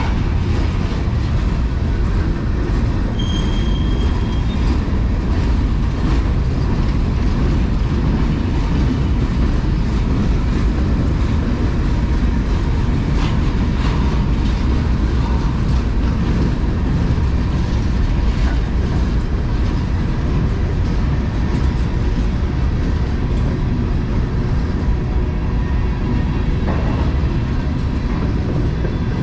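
Mixed freight train rolling steadily past, with a continuous low rumble of wheels on rail and faint brief squeals.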